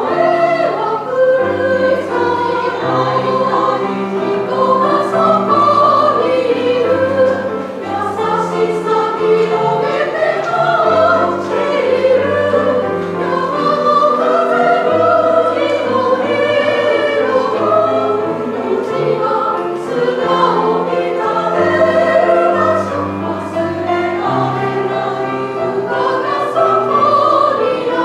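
Women's choir singing in parts, accompanied by a grand piano playing low held notes beneath the voices.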